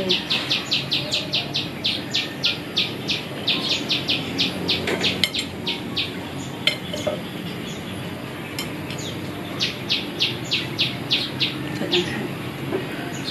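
A wild bird calling in rapid runs of short, high chirps, about five a second, in three bursts. In the pauses come a few light clinks of a metal knife on a ceramic plate.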